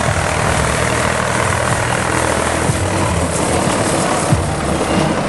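Small narrow-gauge diesel locomotive's engine running with a steady low drone as it hauls passenger carriages past, with rolling wheel noise.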